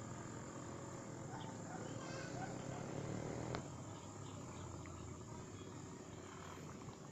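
Insects trilling steadily at a high pitch over a low rumble, with one sharp click about halfway through.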